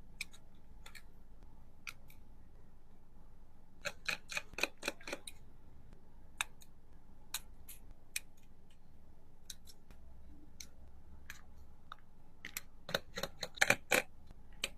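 Small, sharp clicks and ticks of hand tools and parts during a smartphone teardown: scattered single clicks, with quick runs of clicks about four seconds in and again near the end.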